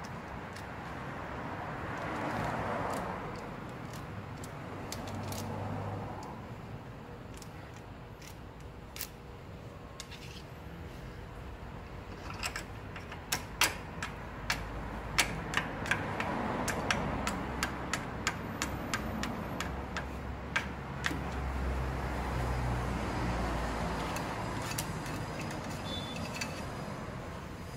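Steel screwdriver tip clicking and scraping against a Kia Bongo III's rear wheel hub and bearing lock nut, a run of sharp irregular metal ticks through the middle stretch, over a low background rumble that swells and fades.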